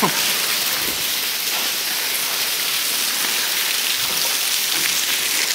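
Steady hiss of water dripping and splashing from the tunnel roof, sounding like rain falling onto a surface.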